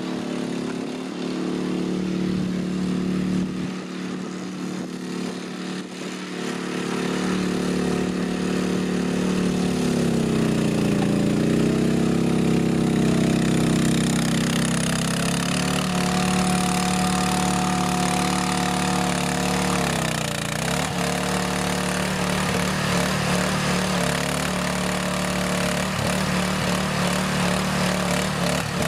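The small engine of a Jansen RD-500 hydrostatic-drive tracked mini dumper running steadily. It grows louder about seven seconds in, and its pitch sags and recovers twice, around ten seconds and again around twenty seconds in.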